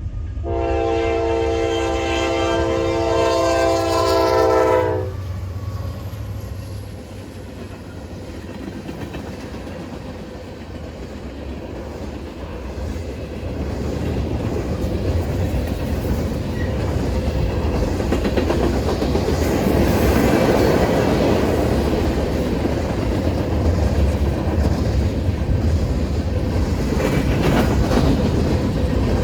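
Nathan K5LA chime horn on a Norfolk Southern AC44C6M locomotive sounds one long blast and cuts off about five seconds in. The freight train then rolls past: diesel locomotive rumble and wheels clacking over the rails, growing louder through the rest of the time.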